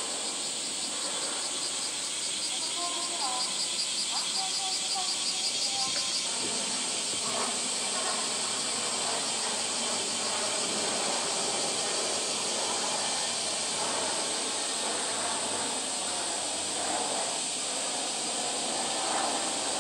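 Steady high-pitched hiss of a summer cicada chorus, with a faint rapid pulsing call for a few seconds near the start.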